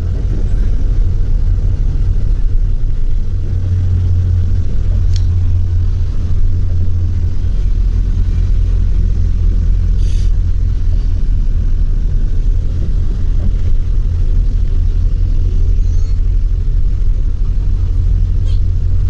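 Steady low engine and road rumble heard from inside a moving bus, with a few brief clicks or rattles about five, ten and eighteen seconds in.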